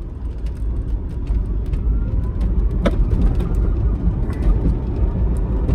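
Road and tyre rumble inside a moving Tesla Roadster's cabin, growing louder as the car picks up speed. A single sharp click about three seconds in.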